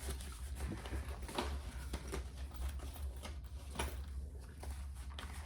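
Light rustling, tapping and clicking of small toiletry items and packaging being handled and set into an organiser's compartments, over a steady low hum.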